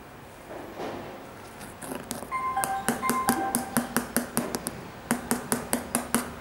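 Background music with a fast clicking beat, about five clicks a second, that comes in about two seconds in. It breaks off briefly about a second and a half before the end and then resumes.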